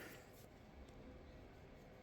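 Near silence: faint room tone with a faint steady hum.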